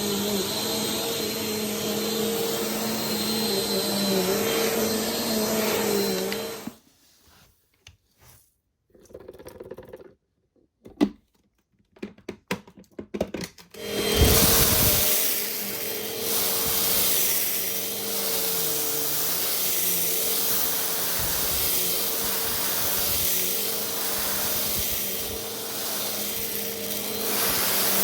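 A vacuum cleaner runs steadily and switches off about a quarter of the way in. A few seconds of handling clicks and knocks follow. About halfway through, a vacuum cleaner with a different pitch switches on and runs steadily.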